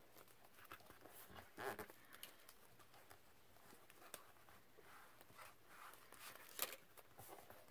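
Near silence with a few faint, scattered rustles and taps of paper being handled.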